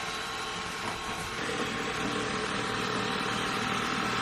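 Xiaomi robot vacuum's motor running with a steady whir and a faint high whine, growing a little louder about a second and a half in.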